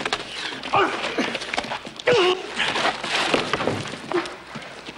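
Fistfight scuffle: a rapid run of blows, thuds and knocks mixed with men's grunts and shouts, easing off near the end.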